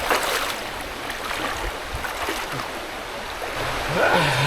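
River water rushing steadily over rocks below a waterfall. Near the end a person's voice rises in a drawn-out cry on getting into the cold water.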